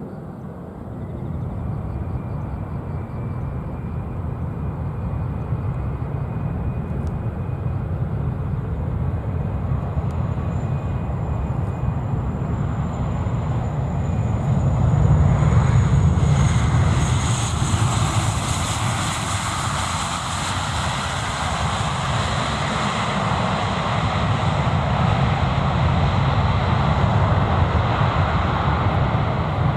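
Airliner passing close on take-off or landing: steady engine noise that builds to its loudest about halfway through, with a high engine whine that slides slightly down in pitch, then a continuing low rumble.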